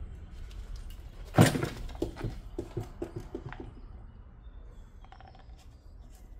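Tools and metal parts being handled during rear suspension work: one loud clank about a second and a half in, then a quick run of lighter knocks and clinks that fade out.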